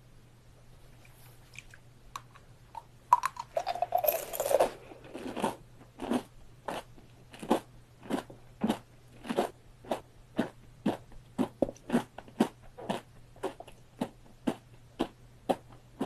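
Amber sugar candy (kohakuto) being eaten: after a quiet start, a cluster of loud bites and crunches about three seconds in, then steady crisp chewing crunches at nearly two a second.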